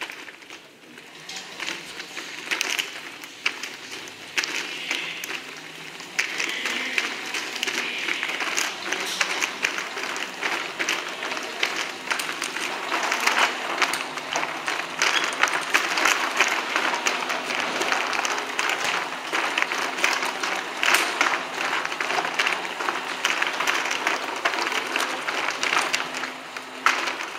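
Meto spray robot's hose reel turning as a new spray hose winds onto the drum: a dense crackling and rustling of the rubber hose sliding and clicking into its layers, building up over the first few seconds. A low steady hum joins in partway through.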